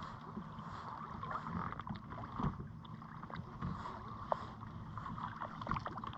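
Small waves lapping against a fishing kayak's hull: a low steady wash with scattered small irregular taps and clicks.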